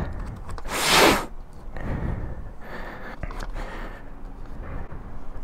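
A short, sharp breath about a second in, then quiet rustling and light clicks of paper sticky notes being peeled off a pad and pressed on.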